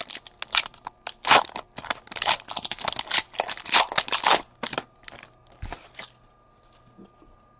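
Foil wrapper of a baseball card pack torn open and crinkled by hand: a quick, irregular run of crackling rips that stops about five seconds in.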